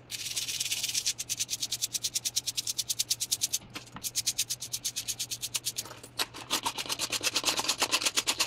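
Toothbrush bristles scrubbing a tarnished silver chain coated in toothpaste, in quick back-and-forth strokes of about eight a second, with short breaks about four and six seconds in. The scrubbing is cleaning the dark tarnish off the silver.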